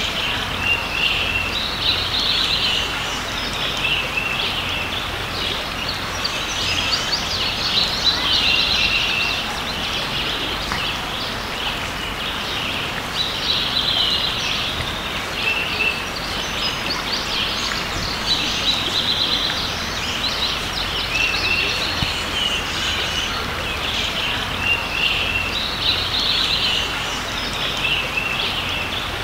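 Songbirds chirping and singing, with a fuller phrase every five or six seconds, over the steady rush of a creek.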